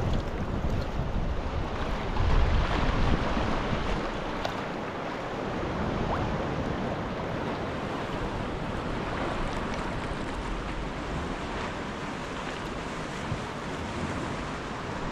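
Sea swell washing and breaking against the foot of sea cliffs and lapping around a sea kayak, a continuous rushing with no let-up. Wind buffets the microphone, most strongly about two to three seconds in.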